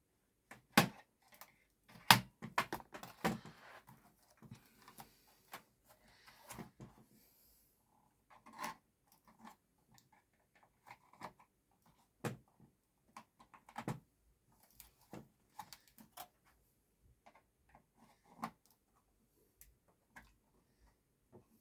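Plastic snap clips of a Dell Inspiron N5010 laptop's palmrest cover clicking free as the cover is pried up and lifted, with scattered light plastic knocks and taps; the sharpest clicks come in a cluster in the first few seconds and again a few times later.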